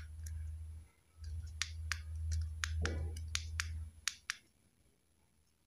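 Small plastic buttons on a wrist-watch FPV monitor being pressed, giving about a dozen sharp, irregularly spaced clicks. A low steady hum sits underneath and stops about four seconds in.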